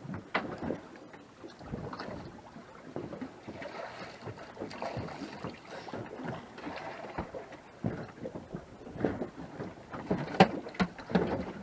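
Irregular knocks and clatter of handling on a small fishing boat, over a low background of wind and water; the sharpest knock comes about ten seconds in.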